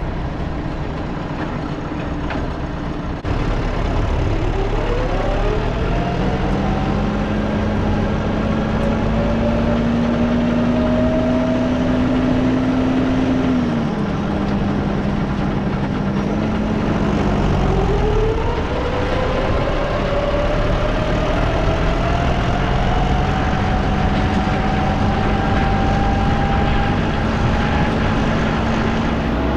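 Farm tractor engine running with a baler hitched on and driven, pulling away and gathering speed. A higher whine climbs with the engine a few seconds in. The engine drops back briefly past the middle, then climbs again.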